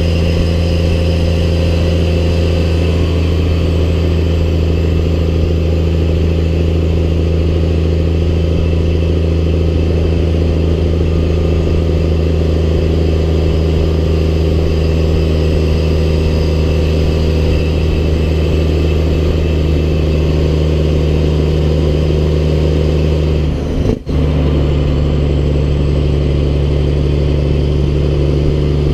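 Snowplow truck's engine running under way at a steady pace: a loud, even drone. Near the end it dips for a moment, then carries on a little lower in pitch.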